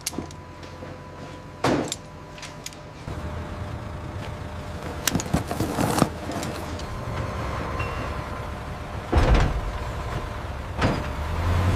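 A vehicle engine running low and steady, growing louder about three seconds in, with four loud clunks spaced through it, the loudest about nine seconds in.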